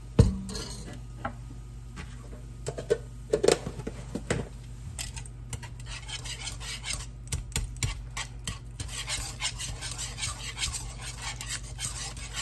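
A wire whisk knocking and scraping in a nonstick pot, working butter and flour into a roux. A sharp knock comes just after the start and a few clinks follow at about three to four seconds; from about halfway on the whisk scrapes rapidly and steadily against the pot.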